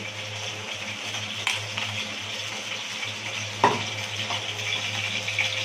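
Hot oil sizzling steadily in a steel wok over a gas flame, with nigella seeds frying in it, and a low steady hum underneath. A single knock comes about three and a half seconds in.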